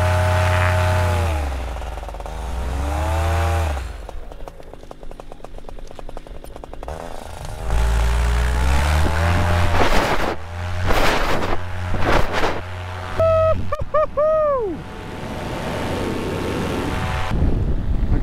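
Paramotor engine and propeller revving, the pitch rising and falling over and over, with several abrupt changes in the sound and one run-down in pitch about two-thirds of the way through.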